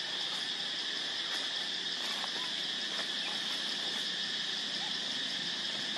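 Steady, high-pitched drone of an insect chorus that does not let up, with a few faint, brief chirps over it.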